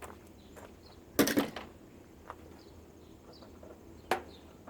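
Parts of an air purifier being handled and pulled apart: a loud clatter of knocks about a second in, and single sharp clicks at the start and near the end. Faint chirping in the background.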